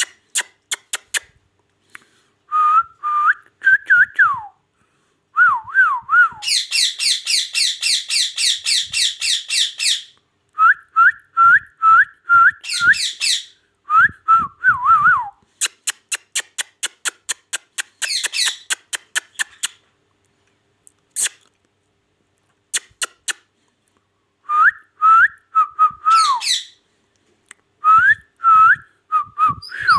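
Ringneck parrot whistling short notes that glide up and down, in groups. Between them come a run of rapid, harsh repeated calls and bursts of quick clicks.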